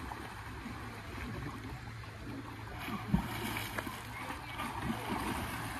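Steady water noise from a spring pool, light splashing and lapping, with one low thump about three seconds in.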